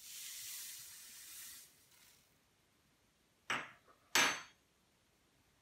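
Granulated sugar sliding down a folded sheet of paper into a bottle, a steady hiss that lasts about a second and a half. Then two sharp knocks under a second apart, about three and a half seconds in.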